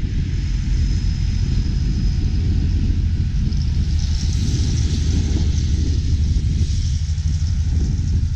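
Heavy farm machinery engine running steadily with a low, even rumble; a hiss joins in about three and a half seconds in.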